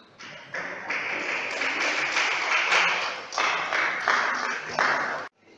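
Audience clapping for the point that wins the table tennis game 11–8. The clapping cuts off abruptly about five seconds in.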